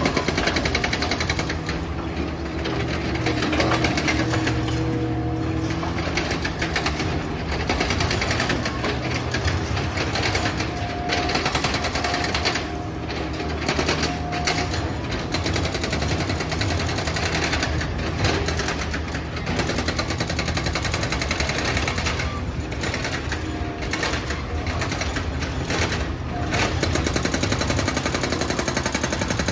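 Hydraulic excavator's diesel engine running under load with a dense, rapid rattling clatter of demolition work, and now and then a brief squeal.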